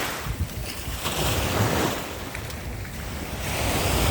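Sea surf washing onto the shore, swelling and ebbing, with wind rumbling on the microphone.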